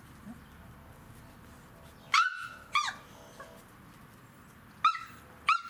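Siberian husky puppies yelping: four short, high-pitched yelps that drop in pitch at the end, coming in two pairs, about two seconds in and again near the end.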